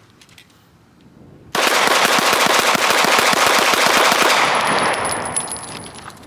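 A sudden, very loud burst of rapid automatic gunfire, many shots a second for about three seconds, then fading away. A faint high whistle sounds near the end.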